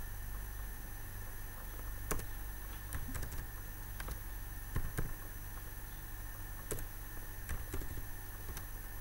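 Keystrokes on a computer keyboard: short clicks in small irregular clusters as numbers are typed, over a steady low electrical hum.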